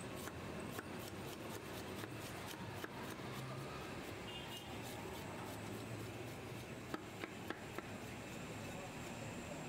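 Knife blade scraping the scales off a whole fish on a wooden chopping block: repeated short rasping scrapes and small clicks, with a few sharper ticks about seven seconds in.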